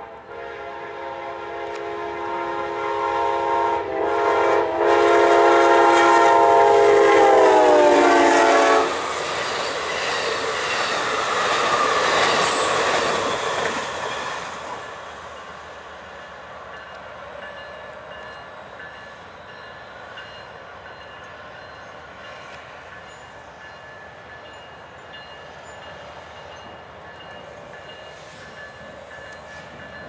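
Diesel locomotive air horn sounding a long chord as the train approaches, the pitch dropping as the locomotive passes. Then the train's rumble and wheel noise go by and fade to a lower steady rumble.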